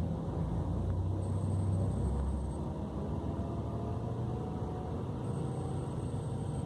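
Scania K400 coach's six-cylinder diesel engine running with a steady low rumble. It swells about a second in, then eases back to an even drone.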